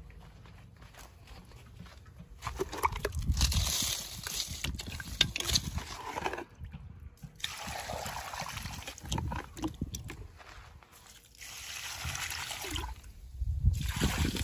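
Water poured and sloshed out of a bucket to water okra plants, in several splashing pours with short pauses between them.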